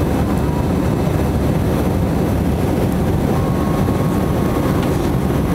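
Airbus A321 jet airliner in flight: a steady, even low drone of engines and airflow.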